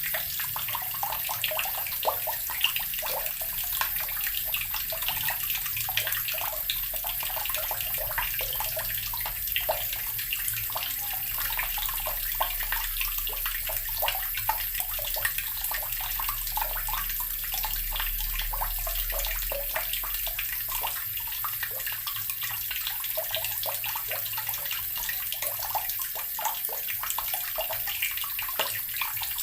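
Water running from a tap into an earthen barrel, splashing and gurgling steadily.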